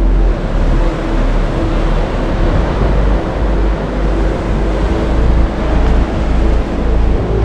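High surf breaking and washing up a sandy beach, a steady rushing noise, with a heavy low rumble of wind on the microphone.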